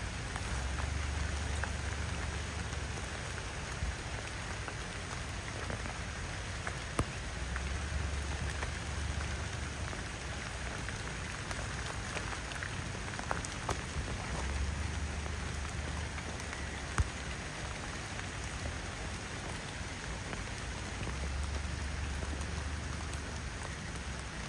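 Steady rain falling, with scattered sharp drop ticks. A low rumble swells and fades four times.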